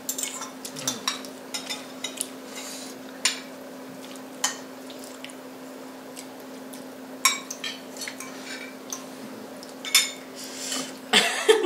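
Forks and spoons clinking and scraping on ceramic plates and bowls while people eat noodles and momos. There are scattered sharp clinks a second or two apart over a steady low hum.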